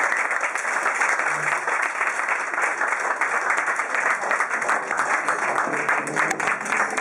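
A roomful of dinner guests applauding: steady, dense clapping after a toast, with a few voices underneath.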